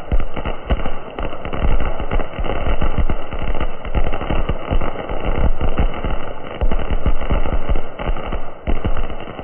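Ground fountain firework (anar) spraying sparks with a steady rushing hiss, peppered with rapid, irregular crackling pops.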